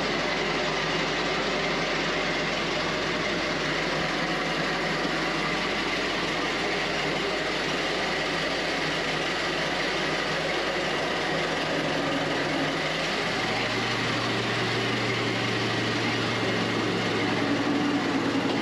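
Ford Model T's four-cylinder engine idling steadily inside an enclosed cargo trailer. A deeper, louder hum joins about two-thirds of the way through.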